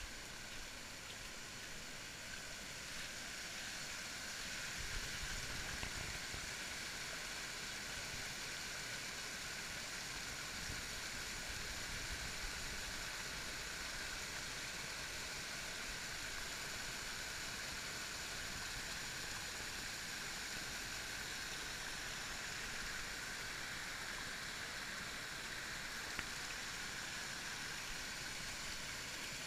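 Creek water spilling over a low rock ledge in a small cascade, a steady rushing splash.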